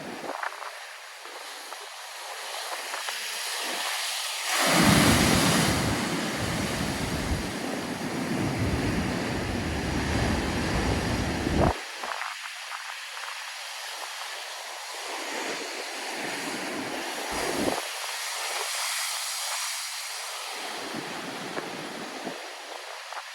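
Heavy winter storm waves breaking and washing, with one big booming wave crash about five seconds in whose deep rumble runs on for several seconds and then cuts off suddenly.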